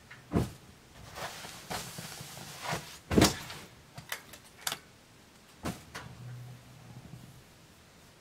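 Bedding being pulled off and dropped from a metal-framed loft bed: fabric rustling, with a few sharp thumps and knocks, the loudest about three seconds in.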